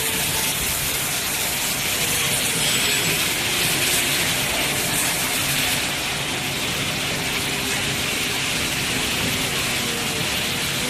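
Steady factory-floor din of machinery running in a screw-making workshop, a dense hiss-like noise with no distinct strokes.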